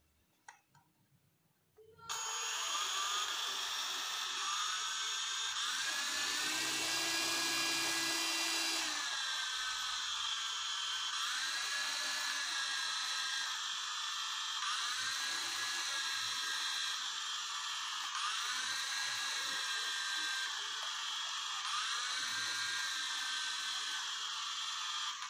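Small electric motors of a toy RC helicopter whining as its rotors spin, starting abruptly about two seconds in. The whine dips and climbs back in pitch every few seconds as the throttle stick is worked.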